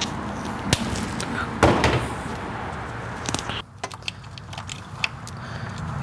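Corrugated plastic split loom being slid and worked down over a wiring harness: scattered rustles and small clicks, with a louder scrape about two seconds in, over a steady background hum.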